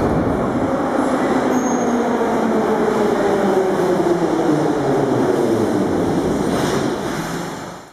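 Kiev Metro train pulling into the platform: a loud, steady rumble of wheels and running gear, with a motor whine that falls in pitch as the train slows. The sound fades out at the end.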